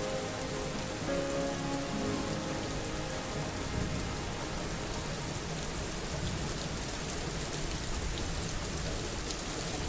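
Steady rain falling, with the last held notes of the song's outro fading out in the first two to three seconds.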